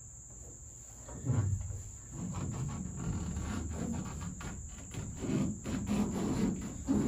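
Hands pressing and rubbing a foil-faced butyl sound-deadening sheet onto a van's sheet-metal door panel, with irregular crinkling, rubbing and soft knocks on the metal starting about a second in. A steady high insect trill runs underneath.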